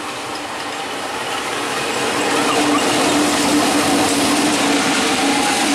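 A KAI CC201 (GE U18C) diesel-electric locomotive running past at close range. Its engine makes a steady drone over broad rail and running noise, growing louder over the first three seconds and then holding.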